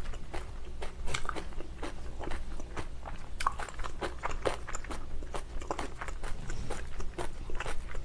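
A person chewing a mouthful of food with lips closed, close to the microphone: a run of irregular wet mouth clicks and crunches, several a second.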